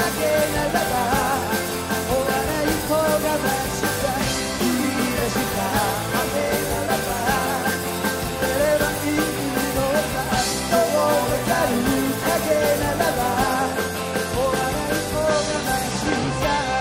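Live rock band playing electric guitars and drums, with a lead vocalist singing over them.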